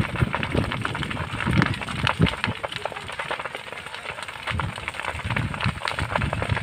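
A vegetation fire burning in trees and shrubs, with dense, irregular crackling throughout.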